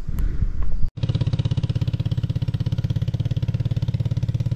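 Single-cylinder engine of an old Suzuki King Quad ATV running steadily with an even, rapid pulse, starting about a second in.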